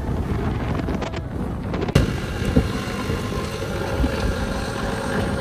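Wind buffeting the microphone over a motorboat's engine running steadily and its wake churning, with a sharp knock about two seconds in.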